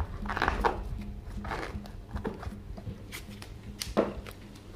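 Plastic casing of a split air-conditioner indoor unit scraping and knocking as it is worked loose from its wall mounting plate. There are several short scrapes, with a sharper knock about four seconds in.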